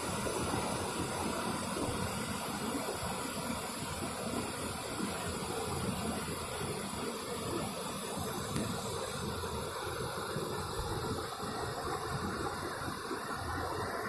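Waterfall rushing steadily over rocks, a continuous even hiss of falling water.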